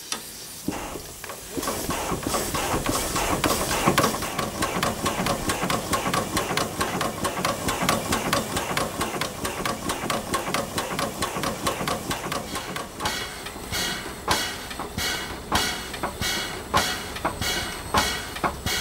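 Steam locomotive's compound air compressor working, each stroke a puff of hissing steam exhaust. The strokes come fast and close together at first, then from about two-thirds of the way in as slower, separate puffs, about two a second.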